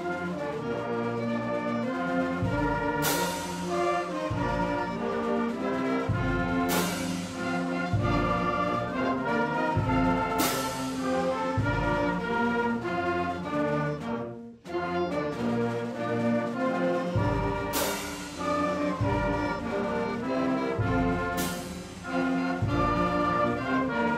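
Wind band music led by brass, with loud crashes every three to four seconds; the sound drops out briefly about fourteen seconds in.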